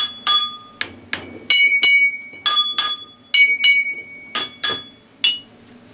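A small hammer tapping metal pieces on a steel workbench: about fifteen quick taps, each ringing like a bell, at several different pitches, stopping shortly before the end.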